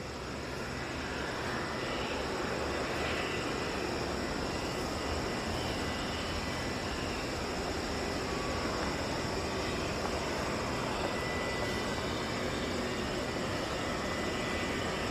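Air Canada Boeing 787-9 Dreamliner's jet engines on final approach to land, a steady airliner noise that grows louder over the first couple of seconds and then holds.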